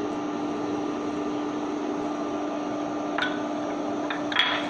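Induction cooktop running under a pot: a steady hum with a fixed low tone and fan-like noise. Two short clicks about three and four and a half seconds in, as the spatula scrapes against the ceramic sauce bowl.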